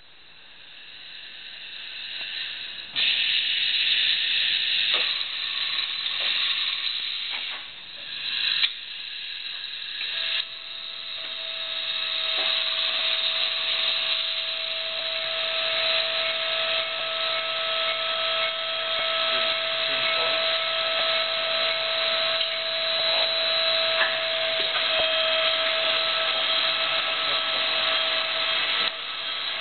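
Railway-axle bearing puller machine running: a loud, steady hiss starts about three seconds in, with a few brief dips and clicks, and from about ten seconds a steady whine runs on under the hiss.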